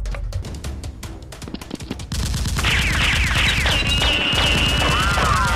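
Action-film soundtrack: background music, then from about two seconds in a dubbed-in rapid machine-gun fire sound effect, with high whining tones sweeping up and down over it.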